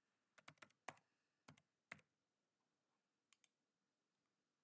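Faint keystrokes on a computer keyboard as a word is typed: a quick run of about seven key taps in the first two seconds, then two more a little past three seconds in.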